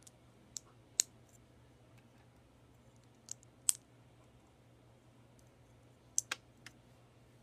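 Small plastic Lego pieces clicking sharply as they are handled, in little groups of two or three clicks with pauses of a few seconds between.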